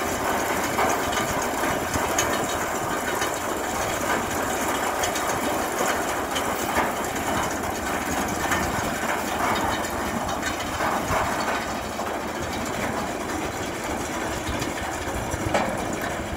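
Tractor engine running while a tractor-drawn bale loader's conveyor lifts straw bales, with steady mechanical rattling and irregular knocks. It runs a little quieter in the last few seconds.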